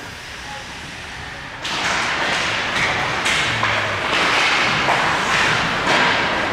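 Ice hockey play: from about a second and a half in, loud scraping noise with repeated knocks and thuds, as of skates, sticks and the puck hitting the ice and boards.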